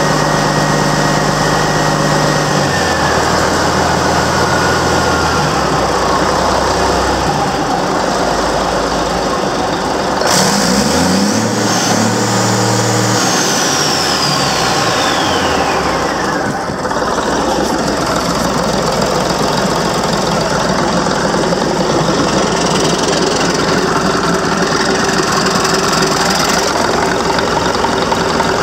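Caterpillar 3306 DITA turbocharged inline-six diesel running with a steady clatter. Its turbo whistle falls away over the first few seconds. About ten seconds in the engine is revved, and the whistle climbs steeply to a high pitch, then winds back down over the next six seconds as the engine settles to a steady run.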